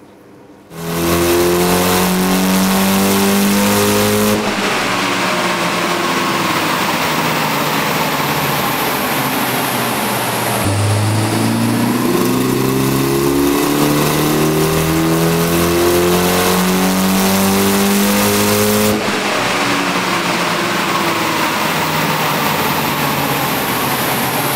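Mitsubishi Lancer Evolution VI's turbocharged 2.0-litre four-cylinder running at full throttle on a chassis dyno. It comes in suddenly under a second in, and its pitch climbs as it pulls up through the revs. The sound jumps abruptly a few times as the power run goes on.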